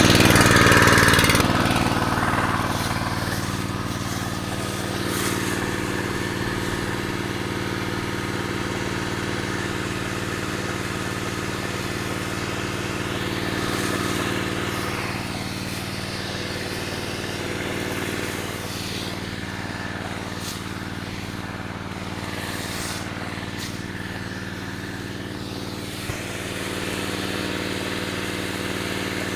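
Small engine of a Chinese portable fire pump running steadily, having just fired up after its cylinder was primed with fuel squirted through the spark plug hole. It is louder for the first second or two, then settles into an even run.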